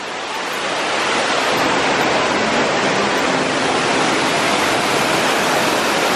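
Steady rush of a large man-made waterfall pouring down volcano rockwork into a pool. It grows louder over the first second or so, then holds steady.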